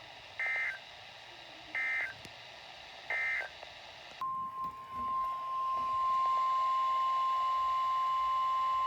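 Three short warbling data bursts of an Emergency Alert System SAME end-of-message code, about 1.4 s apart, closing the previous warning. About four seconds in, the steady 1050 Hz NOAA Weather Radio warning alarm tone starts and holds, announcing the next warning.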